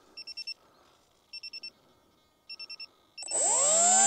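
An onboard electronic beeper on an AR Wing Pro flying wing beeps in groups of four short beeps, about one group a second. A little after three seconds in, the wing's brushless pusher motor spins up for a hand launch, its whine climbing quickly in pitch and then holding steady and loud.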